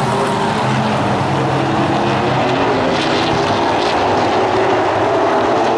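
Pro Late Model stock cars running on the oval track, a steady, loud engine drone with no letup.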